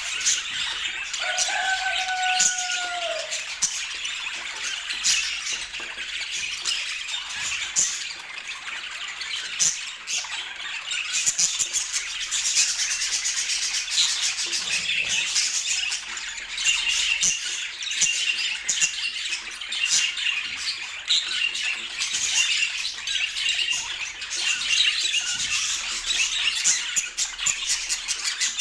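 A flock of budgerigars chattering without pause, a dense mix of warbles, chirps and squawks. Near the start a single clear whistle holds for about two seconds and drops at its end.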